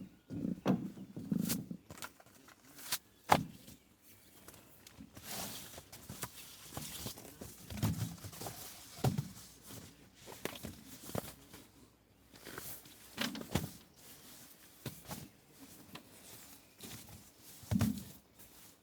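Scattered light knocks and clicks with short spells of rustling. The sharpest knock comes about three seconds in.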